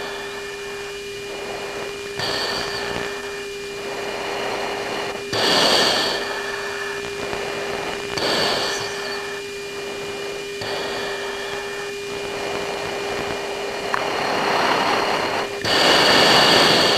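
Cockpit audio from a military jet's mission recording tape: a steady hum-like tone, with about six bursts of hiss, each a second or two long, that start and stop abruptly, like a radio channel keyed open with no one speaking.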